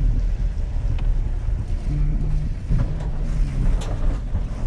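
Vehicle engine and road noise while driving: a steady low rumble with an engine hum that comes and goes and shifts a little in pitch.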